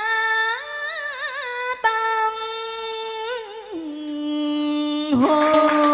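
A female tân cổ singer holds a long, ornamented vowel into a microphone, sliding between held notes with a wide vibrato. Near the end a steadier held tone with a hiss over it comes in.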